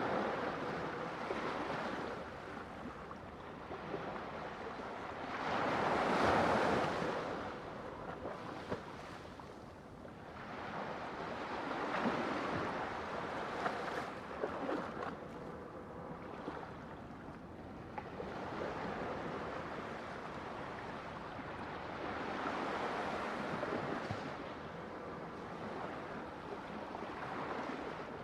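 Ocean waves breaking on a shore as a steady wash of surf that swells and falls back every few seconds, the strongest wave breaking about six seconds in.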